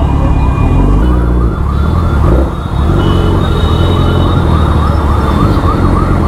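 A fast yelping siren, its pitch rising and falling about three times a second without a break, over a heavy low rumble of road traffic.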